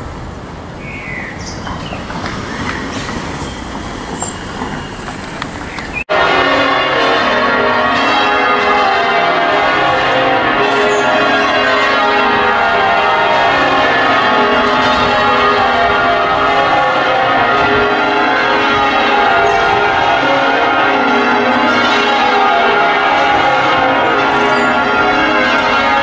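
A rushing outdoor noise with a few faint chirps, then about six seconds in an abrupt cut to loud change ringing: the ring of 13 bells of Liverpool Anglican Cathedral, with its 82 cwt tenor in A♭, rung in changes and heard from outside below the tower.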